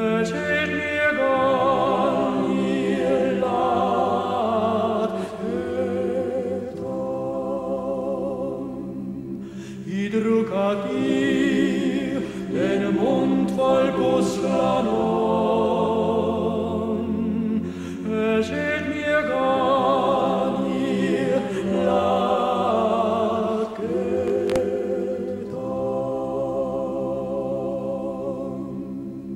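A mixed choir of men's and women's voices singing a folk song in several parts, in long sung phrases with brief breaks between them.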